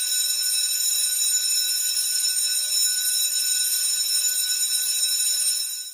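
Steady, loud alarm-like ringing: several high steady tones over a hiss, unchanging throughout, fading out near the end.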